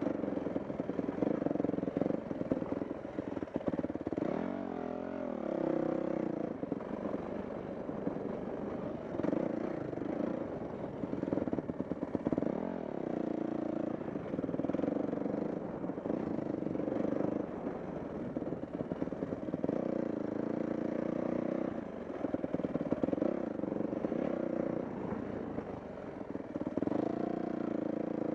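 Dirt bike engine running under changing throttle, its pitch rising and falling every few seconds as it is ridden over trail, with frequent knocks and rattles.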